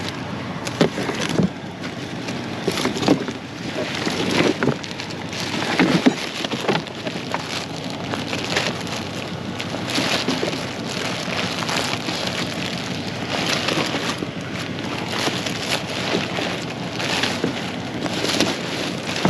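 Black plastic trash bag crinkling and rustling as it is gripped and pulled open by hand, with frequent short crackles and a few knocks.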